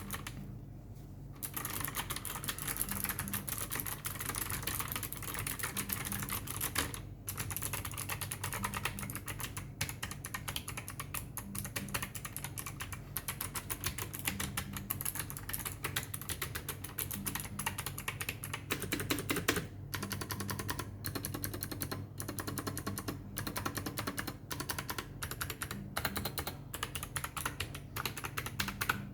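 Dareu EK520 mechanical keyboard with blue switches being typed on rapidly: a dense, continuous run of sharp key clicks, with a brief pause about a second in.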